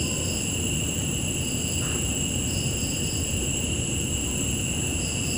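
Crickets trilling steadily, with short chirps repeating about once a second over a low steady background rumble.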